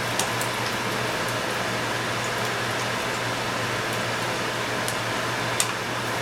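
Corn tortilla frying in hot oil in a skillet: a steady sizzling hiss with a few sharp pops, over a steady low hum.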